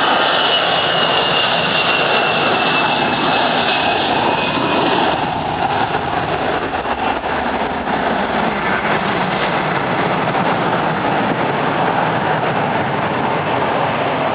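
Jet airliner's engines running loud, with a high whine that falls slowly in pitch and fades out about five seconds in, leaving a steady roar of jet noise.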